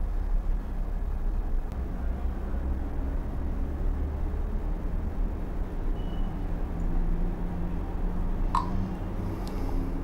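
Steady low background rumble, with one sharp click about eight and a half seconds in.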